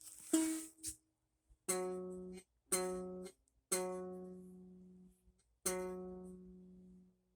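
Music: a handful of slow strummed chords on a plucked string instrument, each one struck and left to ring out before the next, with short silences between.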